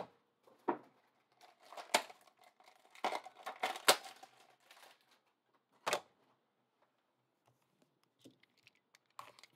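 Trading card box and its wrapping being handled and opened by hand: scattered crinkles and tearing with a handful of sharp clicks, the loudest near the start, around two seconds and around six seconds in.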